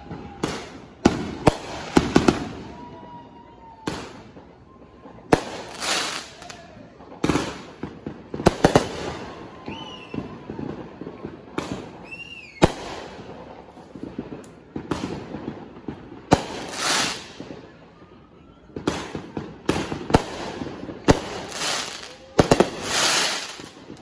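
Fireworks going off in quick succession: sharp bangs and crackling bursts every second or so throughout.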